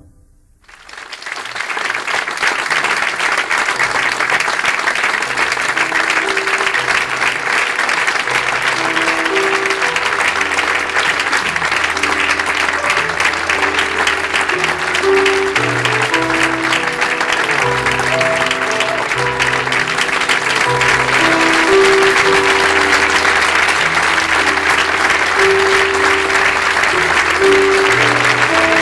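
Theatre audience applauding, starting suddenly about a second in and going on steadily, with an instrumental tune playing under it.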